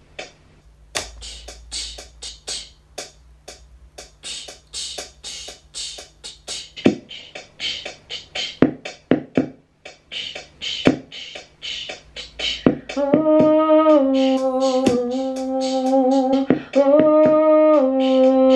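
Loop station's built-in rhythm playing a beat of quick, crisp ticks, joined about seven seconds in by deeper kick-like hits. About thirteen seconds in, a woman's voice comes in over the beat, singing long held notes that step between a few pitches.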